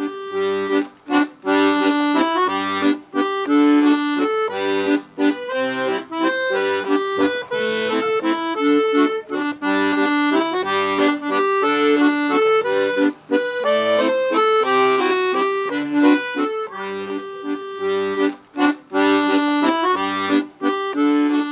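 Instrumental music: a lively tune of quickly changing notes over low bass notes on a steady beat.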